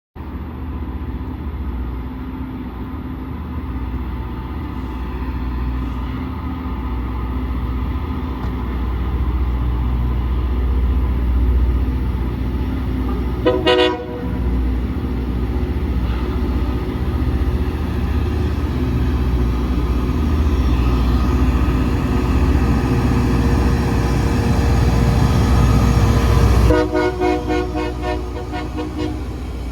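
Rail grinder train grinding the rails: a steady loud roar of engines and grinding stones on the steel. A short horn blast sounds about halfway through, and near the end a longer, pulsing horn sounds as the roar drops off.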